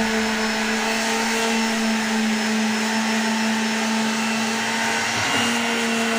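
Handheld electric palm sander running steadily with a high motor whine as it is pressed against a coffin's side panel. Its pitch dips briefly about five seconds in, then settles again.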